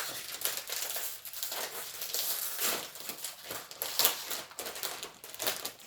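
Crinkly plastic snack bag being handled and torn open, a run of irregular crackles and rustles.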